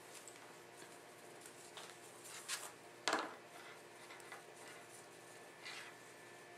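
Braided rope rustling and sliding through the hands as turns are wrapped around a monkey's fist knot, in a few brief faint swishes, the loudest about three seconds in.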